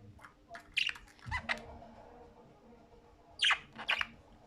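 Budgerigars chirping and squawking: two clusters of short, sharp calls, one about a second in and another after about three seconds.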